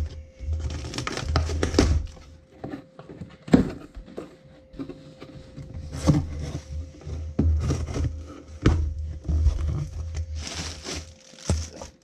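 Cardboard shipping box being cut open and its flaps pulled back by hand: an irregular run of scrapes, knocks and rustles of cardboard.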